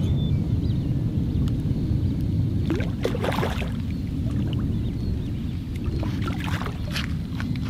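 A hooked carp splashing and thrashing at the surface as it is played in, in two short bouts: about three seconds in, and again around six to seven seconds. Under it all is a steady low rumble of wind on the microphone.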